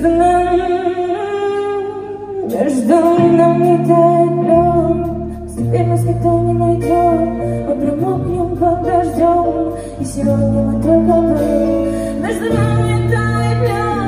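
A woman singing on stage with a live band. She holds notes and slides between them over a sustained bass line that moves to a new note every second or two.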